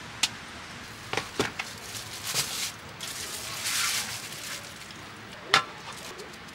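Scattered knocks and clicks of objects being handled, with a short hiss a little past the middle and one sharp clack near the end.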